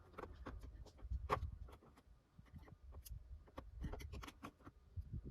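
Faint, irregular plastic clicks and taps as a car door trim piece held on stiff snap clips is worked and pried with a tool, over low handling rumble.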